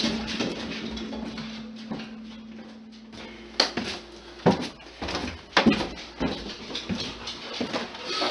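Footsteps and knocks of a person walking down into a basement, with a steady low hum that stops about three and a half seconds in, followed by irregular sharp thuds.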